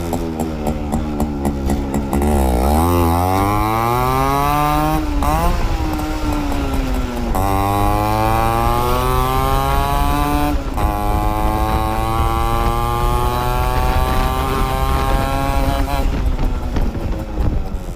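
Yamaha RX 100's two-stroke single-cylinder engine accelerating through the gears: the pitch sags about two seconds in, then climbs again and again, with a short dip at each upshift about five, seven and a half and ten and a half seconds in. After the last shift it rises more slowly, then falls away near the end as the throttle is eased.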